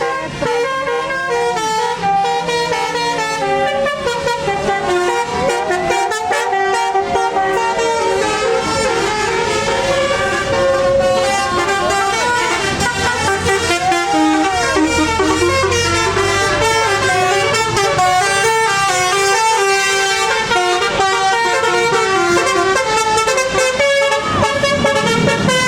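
Bus telolet horn, a multi-trumpet musical horn, playing a quick stepping tune of several notes sounding together, without a break.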